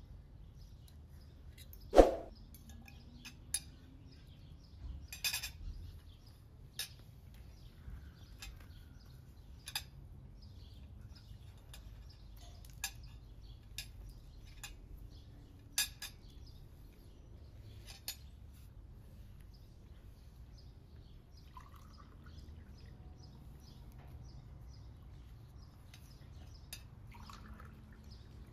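Metal forks and knives clinking and scraping on ceramic plates during a meal, in scattered light clicks, with one louder ringing clink about two seconds in. Near the end, water is poured from a jug into a glass.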